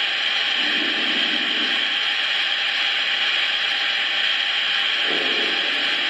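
Steady steam hiss from the Lionel Vision Line Union Pacific Big Boy model locomotive's onboard sound system as it stands, with two short low rumbles, about a second in and again near the end.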